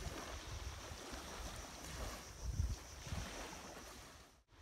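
Wind buffeting the microphone in uneven low gusts over a steady hiss of wind and surf; the sound drops out briefly near the end.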